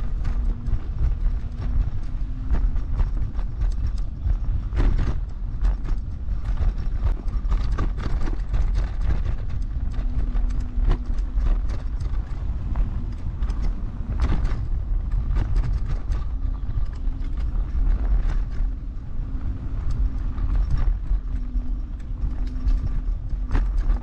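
Heavy electric scooter ridden over a rough, bumpy forest track: a steady low rumble of wind and tyres, with frequent rattling knocks from the frame and suspension over the bumps. A faint motor whine comes and goes.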